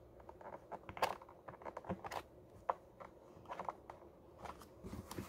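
Faint, scattered clicks and rustles of plastic being handled as a clear plastic detergent tube is worked onto its fitting on a pressure washer's plastic housing.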